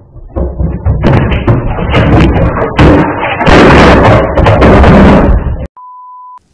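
Flat-screen TV toppling off its stand onto a tiled floor, a run of loud knocks and thuds that stops abruptly. A steady test-tone beep follows near the end.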